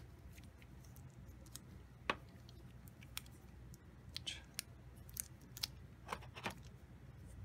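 Resin miniature kit parts being handled and dry-fitted in a cardboard box: scattered faint clicks and taps as the hard pieces knock against each other and the box, over a low steady hum.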